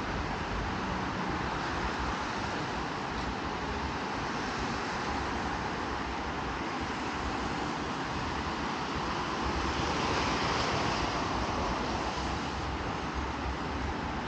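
Steady city street traffic noise on wet roads, with a vehicle passing that swells louder and hissier about ten seconds in.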